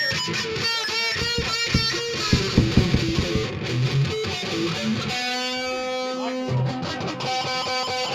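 Rock band playing an instrumental passage led by electric guitar. About five seconds in, the guitar holds long notes, one of them sliding down in pitch.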